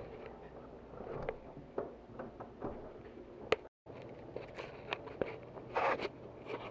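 Faint scattered clicks and rustles from a handheld camera being moved, with a moment of dead silence about halfway through where the video cuts.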